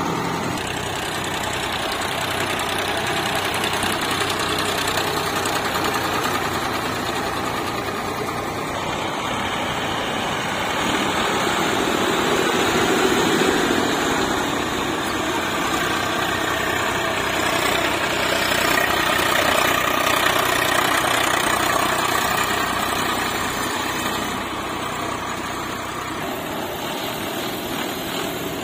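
Diesel tractor engine running continuously, getting somewhat louder a little before the middle and again past the middle.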